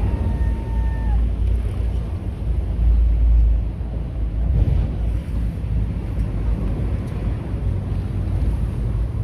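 Wind buffeting the microphone, a heavy, uneven low rumble over a steady rushing noise. A short, faint high tone sounds in the first second and dips in pitch as it stops.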